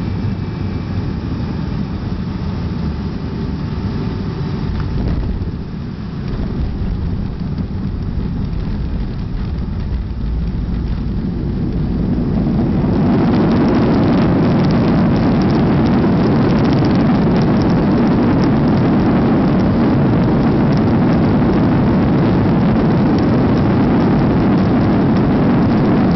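Boeing 737-200's JT8D jet engines and airflow heard from inside the cabin during landing. The noise is steady at first, then rises sharply about halfway through into a louder, steady roar as reverse thrust is applied on the landing rollout.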